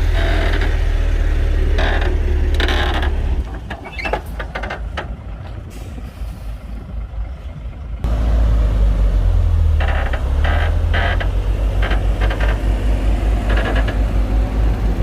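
Heavy diesel engine of earth-moving machinery running with a deep, pulsing rumble. It drops away abruptly about three and a half seconds in, leaving scattered knocks, and comes back loud about eight seconds in.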